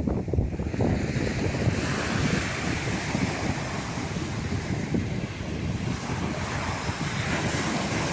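Sea waves washing onto a beach, with wind buffeting the microphone. About two seconds in, the hiss of the surf swells and holds.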